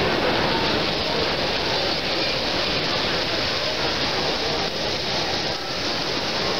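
Steady, even din of a busy exhibition hall, with many voices blending into a wash of noise, while model trains run past on the layout track.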